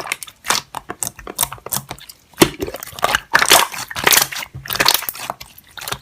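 Slime being worked by hand, giving off an irregular run of crackling pops and clicks, a few of them sharper and louder about two and a half, three and a half and four seconds in.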